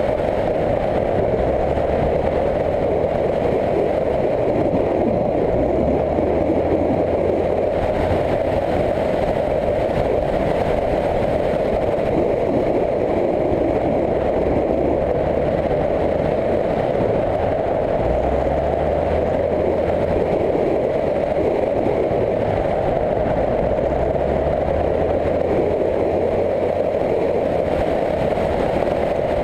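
Motorcycle running along at speed, heard from an onboard camera: a steady dense rush of engine and wind noise, with the low engine note shifting a few times.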